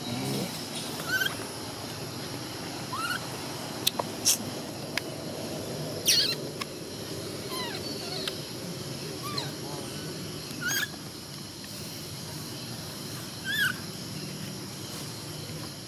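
Infant macaque giving short, high, rising squeaks every second or two, about seven in all. A few sharp clicks come around four to five seconds in.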